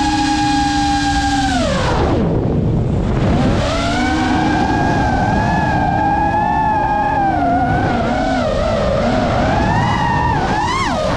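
GEPRC Mark 5 FPV quadcopter's brushless motors and propellers whining. A steady high whine drops sharply about two seconds in as the throttle comes off, then climbs back and wavers up and down with the throttle, over a low rushing noise.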